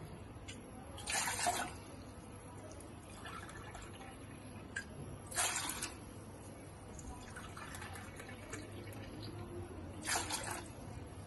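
Water poured from a cup into a cooking pot, in three short splashing pours a few seconds apart.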